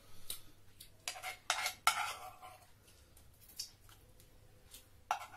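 Spoons clinking and scraping against a metal pan and plates as curried fish is dished out. There is a quick run of sharp clinks about a second to two and a half seconds in, then a few lighter taps, and one more clink near the end.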